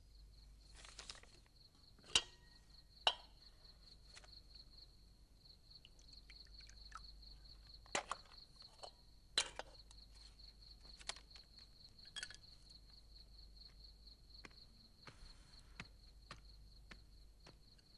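Dishes and utensils clinking and knocking as a bowl of food is prepared: scattered sharp clicks, the loudest about two and three seconds in and again around eight and nine seconds in. A steady, fast-pulsing cricket chirp sounds underneath.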